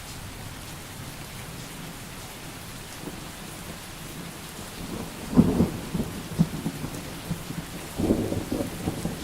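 Steady rain falling, with thunder rumbling and crackling in about five seconds in and again near the end.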